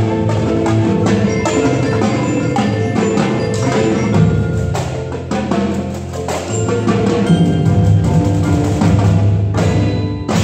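Indoor percussion ensemble playing: marimbas and vibraphones ring out melodic mallet lines over rhythmic strikes from a drumline of snare, tenor and bass drums. The playing breaks off sharply just before the end.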